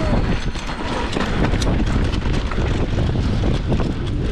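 Enduro mountain bike descending a rough trail at speed: tyres rolling over dirt and rock, the bike rattling and knocking with many sharp hits, and wind across the microphone.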